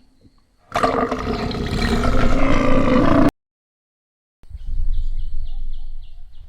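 A loud animal-like roar with a strong low pitch, lasting about two and a half seconds and cutting off abruptly. After a second of total silence comes a different sound effect: a low rumble with a quick run of about six short high chirps.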